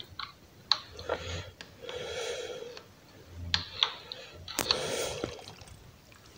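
Metal ladle clicking against a cooking pot as it stirs and lifts pieces of chicken and vegetables out of bubbling peanut stew, with a few sharp clicks and two longer soft swishing noises.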